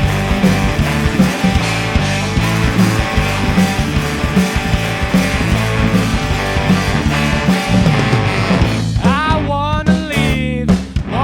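Rock band playing live: drums, bass, electric guitar and saxophones in a full, driving instrumental passage. Near the end the backing thins out and a single lead line with sliding, bending pitch comes to the front.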